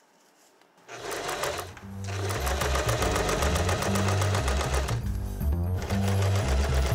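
Electric sewing machine stitching through dark fabric, its needle running in a fast, even clatter that starts about a second in and stops briefly for under a second a little past the middle before running on.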